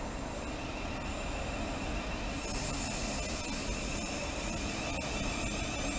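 Southeastern Class 465 Networker electric multiple unit starting to pull away from the platform. A steady low rumble runs under a higher whine that comes in about two seconds in and holds.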